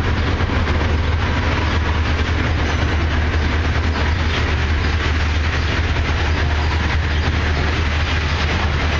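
Loaded iron-ore hopper wagons of a freight train rolling past with a steady low rumble, their steel wheels running over the rails.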